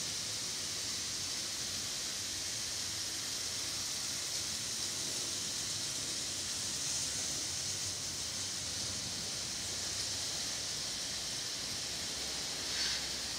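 Steady hiss of background room noise, with a brief rustle near the end.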